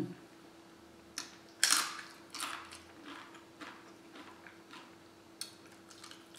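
Close-up chewing of food, with a series of short crisp crunches spaced unevenly about every half second to second.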